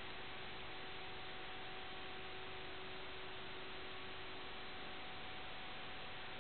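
Steady hiss with a faint, unchanging hum: static on the audio channel of an analog FPV video link. The pitch does not move as the craft speeds up and climbs, so the hexacopter's motors are not heard.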